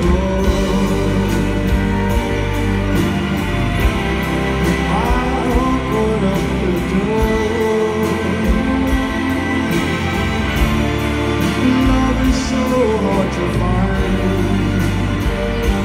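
A live rock band playing a slow song: electric guitars, bass and drums, with a man singing at times.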